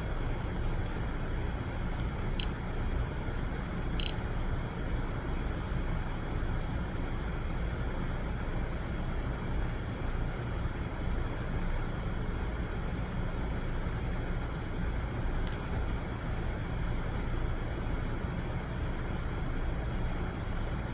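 Steady low background rumble with a faint hiss, broken by a few short, sharp clicks: two a couple of seconds in and one about two thirds of the way through.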